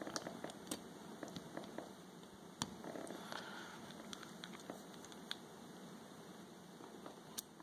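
Faint, scattered small clicks and scrapes of metal and polymer pistol parts being handled as the Glock 42's slide cover plate is pushed back on.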